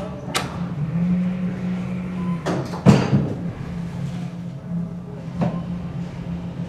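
ThyssenKrupp traction elevator car heard from inside. A couple of clicks as a car-panel button is pressed, the doors sliding shut and closing with a thud about three seconds in, and a click a couple of seconds later as the car starts upward, over a steady low hum.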